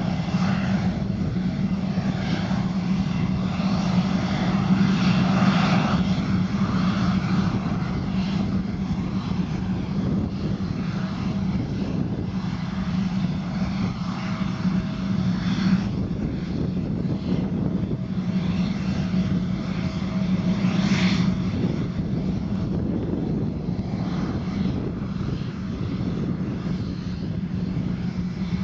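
Gulfstream IV business jet's two rear-mounted Rolls-Royce Tay turbofans running at low taxi power as it rolls slowly along the taxiway: a steady low jet hum with engine whine and rushing noise over it.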